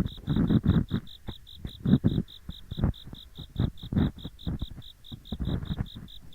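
Ear pick scraping and rubbing in the ears in close, rough 'gori-gori' strokes that come and go irregularly. Behind it an autumn insect chirps in short, evenly spaced high pulses, about six a second.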